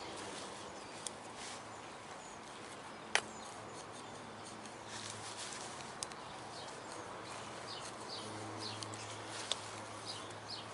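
Faint scratching and a few light sharp ticks of a small screwdriver tip scraping corrosion from the bore of a metal hydraulic cylinder gland.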